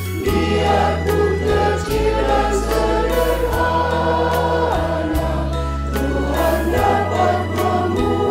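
Mixed choir of men's and women's voices singing a church song in harmony, recorded separately and layered as a virtual choir. Under the voices, an accompaniment holds sustained low bass notes that change every second or two.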